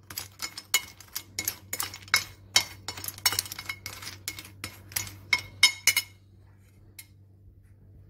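Metal teaspoon stirring glass-hard homemade lozenges on a plate to coat them in powdered sugar: a quick, irregular run of clinks and clicks from the spoon and candies against the plate, stopping about six seconds in.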